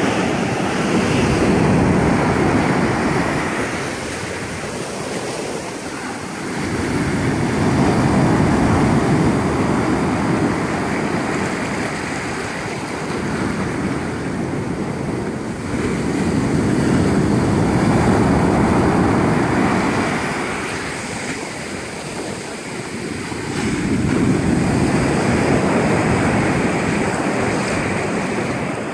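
Ocean surf breaking and washing up a sandy beach, the wash swelling and easing four times, about every eight seconds.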